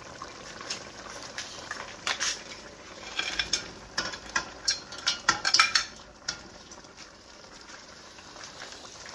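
Spatula clinking and scraping against a plate and the pot as meat and seafood are tipped into the simmering plantain. The clinks come in a quick run in the middle and then stop, over a steady low hiss from the pot.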